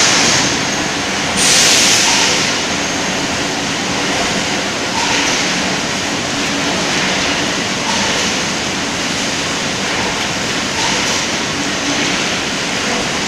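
Bottle conveyor line running steadily, carrying capped PET water bottles with a continuous mechanical rumble and rattle. A hiss swells every few seconds.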